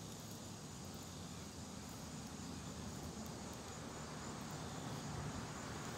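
Faint, steady outdoor background hiss with no distinct sounds.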